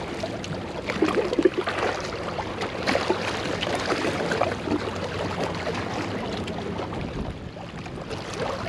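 Small waves lapping and splashing against shoreline rocks, an irregular wash with little splashes.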